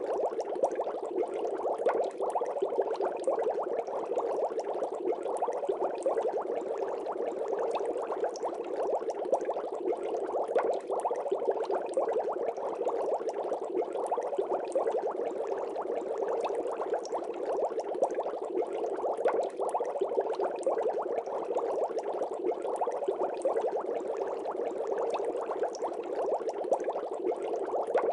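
Steady bubbling water, a dense crackle of small bubbles that keeps on evenly, like air bubbling through an aquarium.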